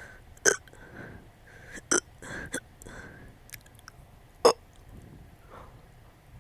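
Hiccups that bring up small burps: four sharp, sudden ones at uneven intervals, with softer breathing between.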